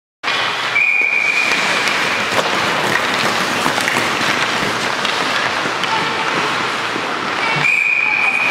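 Hockey practice din in an echoing ice rink: children's voices, sticks and pucks clacking, and skates on the ice. A steady high tone is held for about a second and a half near the start and again near the end.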